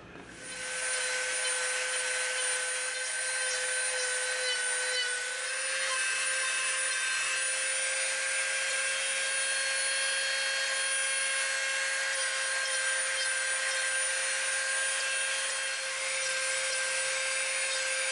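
Dremel rotary tool with a sanding drum running at a steady high speed, a constant whine, as it sands and rounds off the edges of EVA foam. It starts just after the beginning, and its pitch steps up slightly about five seconds in.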